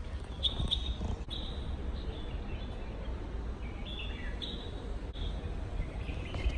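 Small birds chirping: short high chirps recur every second or so, with a few falling notes about four seconds in, over a steady low rumble.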